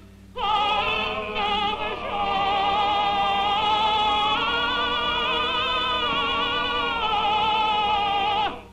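A cantor chanting a synagogue prayer solo: one voice singing long, held notes with a wide vibrato. It begins about half a second in and breaks off just before the end.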